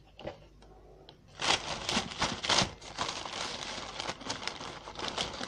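Baking paper crinkling and rustling as it is handled, starting about a second in, with many small crackles.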